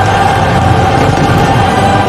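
Loud sustained choral and orchestral music holding long steady chords, over a dense low rumble.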